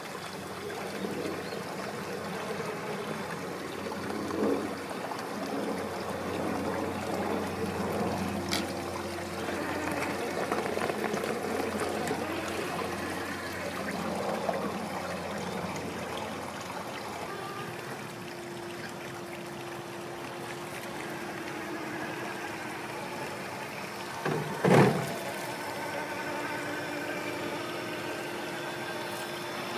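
Stream water trickling and splashing around an Axial SCX6 1/6-scale RC rock crawler as it drives through the water and over rocks, with a faint steady whine from its electric motor and drivetrain. One loud knock comes about 25 seconds in.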